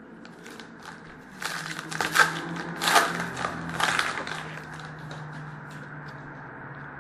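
Foil wrapper of a hockey card pack crinkling and tearing as it is opened by hand, a flurry of rustles in the first half that settles into quieter handling.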